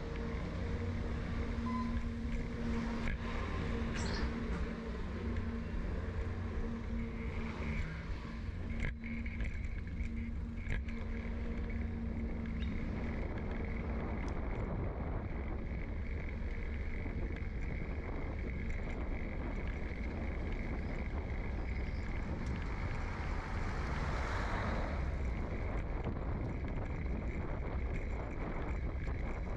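Steady low rumble of wind and road noise picked up by a bicycle-mounted microphone as the bike rolls along, with a steady hum for the first dozen seconds and a few light knocks.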